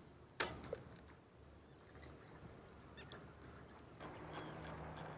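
A spinning reel's bail arm snapping shut after a cast: one sharp click about half a second in, followed by a few faint ticks. A little before the end a louder steady background with a low hum comes in.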